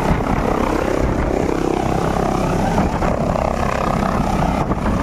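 Turbine helicopter close overhead at low height, its rotor and engines running loud and steady.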